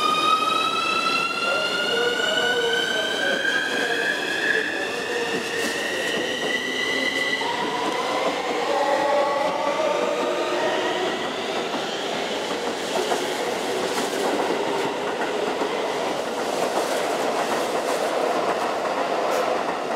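Keikyu New 1000 series electric train pulling away, its traction inverter and motors whining in a tone that rises steadily for the first seven or eight seconds. The pitch then drops to a lower set of tones, with wheels clattering over the rail joints as the cars roll past. Near the end a second train runs by close to the platform.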